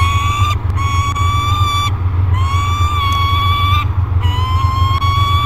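Juvenile peregrine falcon giving repeated long, slightly rising wailing calls with short breaks between them: one ending about half a second in, then three more. This is the begging wail of a young falcon. A steady low hum runs underneath.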